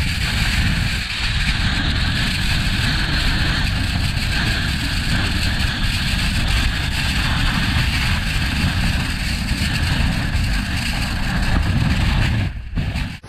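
Blizzard wind buffeting the microphone: a deep, steady rumble under a hiss. It cuts off suddenly near the end.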